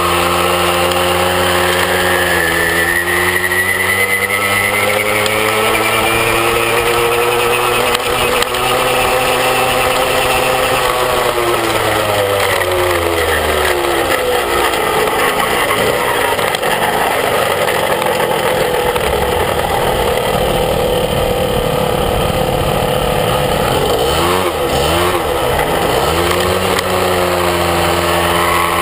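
Small moped engine running under way, its pitch rising as it speeds up and falling as it slows, with a dip and a climb again near the end.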